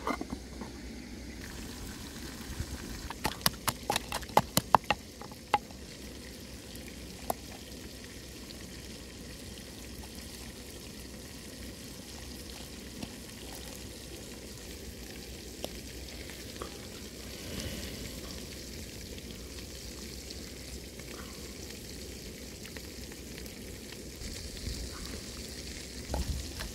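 Steady hiss with a run of sharp taps and clicks a few seconds in, then a wooden pestle beginning to knock in a wooden mortar near the end.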